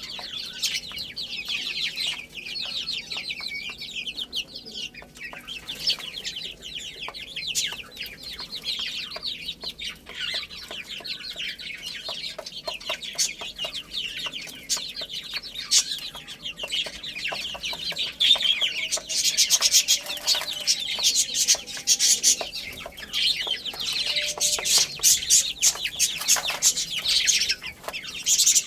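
A brood of baby chicks cheeping continuously, many high-pitched peeps overlapping, growing busier and louder in the second half.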